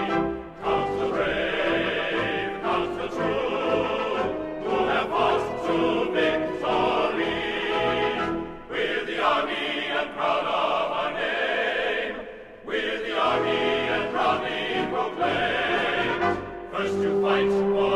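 Music: a choir singing in long held phrases, with short breaks about every four seconds.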